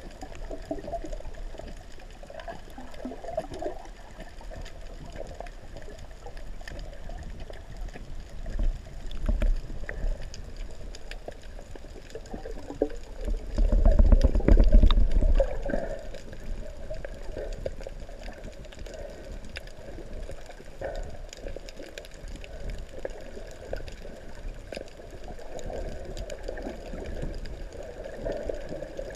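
Muffled water sound picked up by a camera underwater in its housing: a steady wash and gurgle, with a louder rush and crackle for about two seconds midway through.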